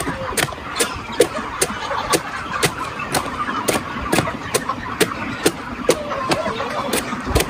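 A large knife slicing crosswise through a banana stem, one sharp chop a little over twice a second in a steady rhythm.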